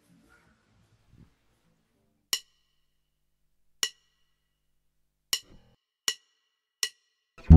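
Five short, sharp, ringing clicks in a count-in rhythm: two slow ones a second and a half apart, then three twice as fast. Electric basses come in loudly on the next beat, right at the end.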